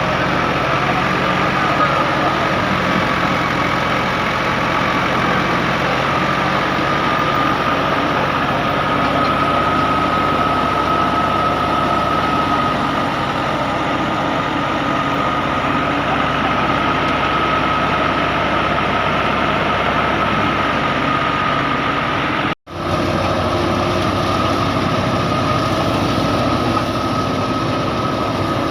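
Heavy harvesting machinery running steadily under a constant engine drone, with a steady whine over it. The sound cuts out for an instant about three-quarters of the way through and then resumes unchanged.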